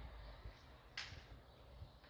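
Near silence: faint outdoor background with low rumble, broken by a single short sharp click about halfway through.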